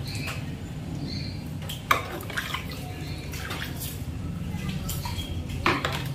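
Water splashing and dripping as a plastic mug scoops and pours from a bucket, with a sharp splash about two seconds in and another near the end, over a steady low hum.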